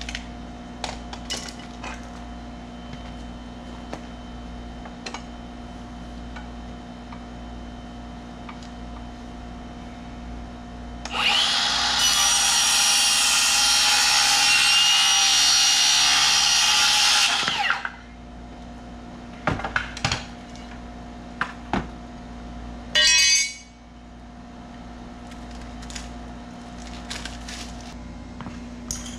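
A circular saw starts about eleven seconds in and cuts through a board for about six seconds, then stops sharply. Short knocks and clicks from handling the tools and wood come before and after, with a brief half-second burst later on.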